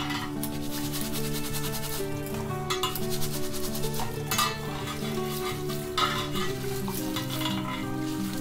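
Katarni rice being rubbed and swished by hand in a bowl of washing water: repeated wet, gritty swishing strokes of grains against the bowl. Background music with held notes plays underneath.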